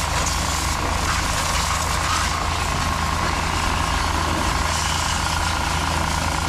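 High-pressure washer running steadily: its motor and pump hum under the even hiss of the water spray.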